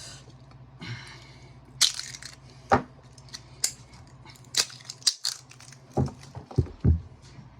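Metal tools clicking, scraping and bending on the sharp nickel tabs left on lithium-ion battery cells: a string of irregular sharp clicks and scrapes.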